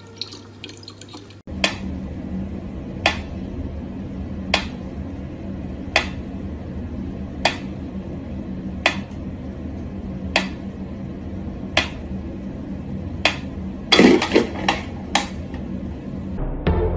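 Mechanical pyramid metronome ticking at a slow tempo, starting about a second and a half in: one sharp tick about every one and a half seconds over a low steady hum. About fourteen seconds in, a quick cluster of extra clicks and knocks joins the ticking.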